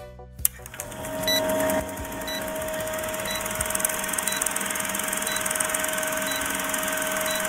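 Film projector sound effect: a movie projector running with a steady whirring rattle and a held hum, with a faint tick about once a second.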